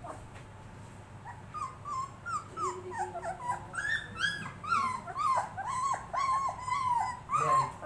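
Puppy whimpering in a quick run of short, high cries that bend up and down. The cries start about a second and a half in and come thick and fast through the second half.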